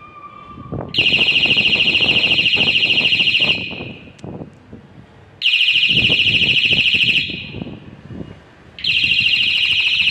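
Water tank overflow sensor's electronic buzzer alarm sounding in three bursts of rapid, high-pitched beeping, each a couple of seconds long, with short pauses between. It is set off by the sensor probe touching the tank water, which signals that the tank is full.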